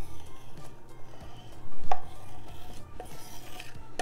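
Metal spoon scraping chocolate batter out of a stainless steel mixing bowl, with a few light clinks of spoon on bowl. The loudest clink, about two seconds in, makes the bowl ring briefly.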